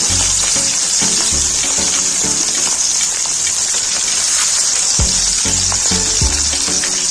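Potato spring rolls frying in hot oil, a steady sizzle.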